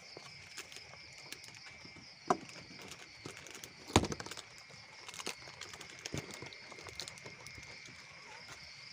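Steady night chorus of insects, a continuous high shrill with a second, higher band above it, with scattered clicks and knocks of things being handled close by. The loudest knock comes about four seconds in.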